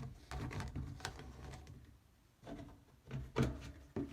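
Plastic sink drain parts being handled and fitted together by hand as a beveled washer goes in and the slip nut is snugged up: a scattered run of light clicks and knocks.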